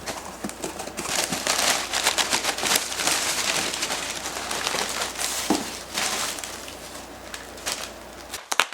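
A package being opened by hand: packing material crinkling and rustling in irregular bursts, with a couple of sharp clicks near the end.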